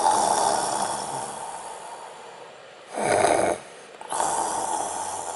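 A man snoring in his sleep: a long snore that fades away, a short snort about three seconds in, then another long, fading snore.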